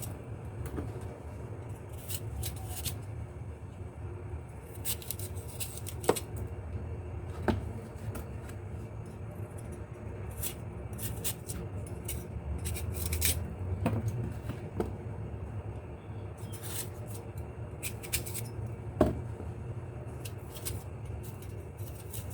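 Knife cutting apples into quarters and cutting out the seeds: short rasping cuts and scattered sharp taps, over a low steady hum.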